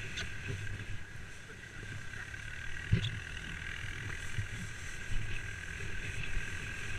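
A wheelbarrow being towed over snow on a rope behind an ATV: a steady rumble and rattle with the ATV's engine running ahead, and a sharp bump about three seconds in.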